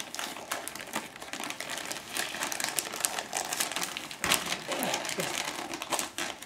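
Shiny wrapping paper crinkling and rustling in irregular bursts as a small child grips and pulls at a wrapped present to open it.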